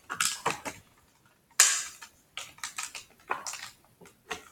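Stiff plastic toy packaging being handled and pried at by hand: a scatter of clicks and crackles, with one louder crackle about one and a half seconds in.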